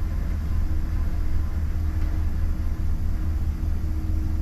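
Pickup truck engine idling: a steady low rumble with a faint steady hum above it.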